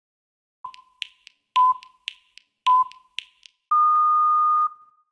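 Workout interval timer beeping: three short beeps about a second apart, each with a sharp click, then one longer, slightly higher beep. This is the countdown marking the end of a 40-second exercise interval.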